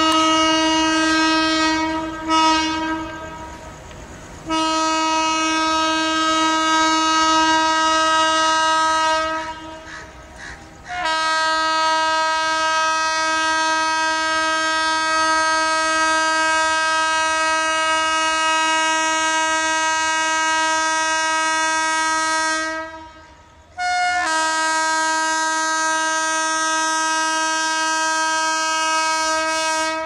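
WAP-5 electric locomotive's horn sounding one steady note in long continuous blasts, broken by brief pauses about 2, 9 and 23 seconds in, with a short toot during the first pause.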